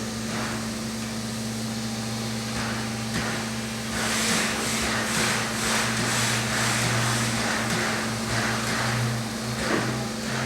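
Steam locomotive 3801 standing under steam: a steady low hum with a hiss. From about four seconds in, a rhythmic pulsing hiss comes in at about two or three beats a second.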